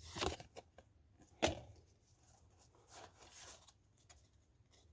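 Foil wrapper of a Pokémon card booster pack being torn open and handled: a few short, quiet tearing and crinkling sounds, the sharpest about a second and a half in.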